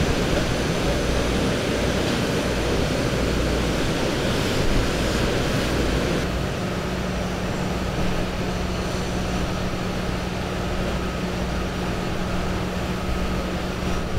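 Steady outdoor rumble of street traffic noise with wind on the microphone. About six seconds in, the sound changes and a steady low hum sets in.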